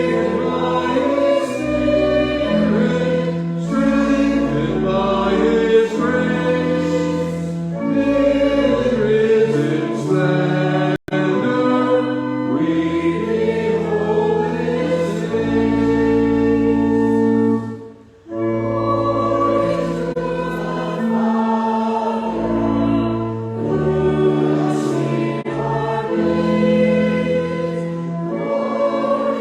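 Church congregation singing a hymn together over held accompaniment chords with long sustained bass notes, pausing briefly about two-thirds of the way through before going on.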